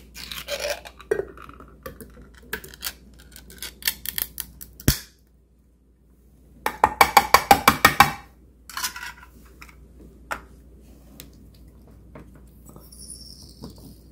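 Metal cat-food can handled over a stainless steel bowl: scattered clicks and clinks, with a sharp knock near five seconds. About seven seconds in comes a second-long run of about ten rapid knocks as the upturned can is tapped against the bowl to empty the food out.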